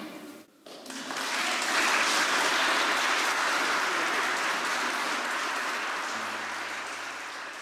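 The last notes of a classical guitar die away, then an audience bursts into applause about a second in, building quickly and then slowly tapering off.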